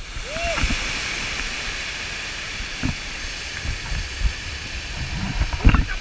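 Steady rushing roar of a large waterfall's falling water, with a few low thuds on the microphone as the camera swings on the rope.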